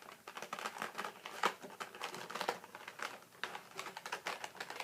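Irregular small clicks and crinkles of an action figure's plastic packaging tray and wire twist ties being handled and untwisted.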